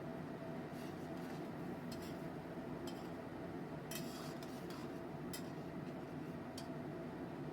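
Light clicks and clinks of kitchen utensils on cookware, about eight scattered knocks, over a steady background hum.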